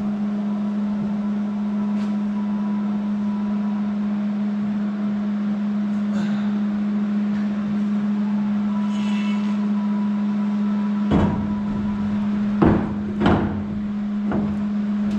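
A steady machine hum, with several sharp knocks in the last few seconds.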